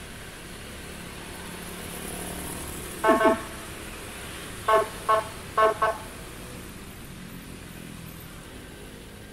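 Short toots of a vehicle horn: a quick double toot about three seconds in, then four more short toots within the next three seconds. Steady engine and road noise runs underneath.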